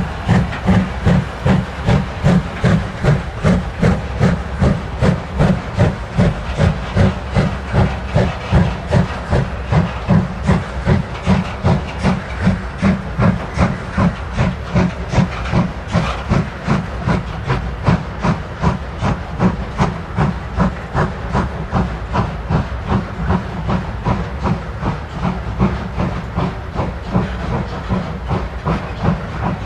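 Steam locomotives 41 1144 and 95 1027 working a gravel train through a slow-speed restriction, their exhausts beating loudly and evenly about twice a second with steam hiss. The beats ease slightly near the end.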